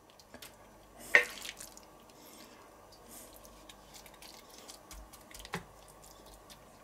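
Sautéed mushroom-and-bacon filling being scooped out of a nonstick frying pan: soft wet squishing with light ticks, and a sharp tap of the utensil about a second in and again about five and a half seconds in.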